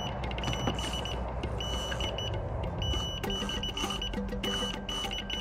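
Electronic carp bite alarm sounding a run: short high beeps in quick, uneven flurries as a fish takes line. A lower-pitched beeping joins in about three seconds in.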